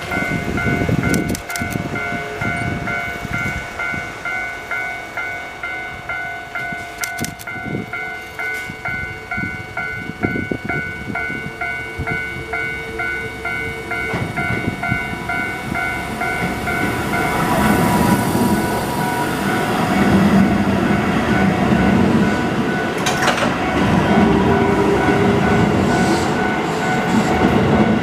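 Japanese level-crossing warning bell ringing in a steady repeating pattern as a Keihan 8000 series electric train passes. The train's running noise and wheel clatter grow louder about halfway through.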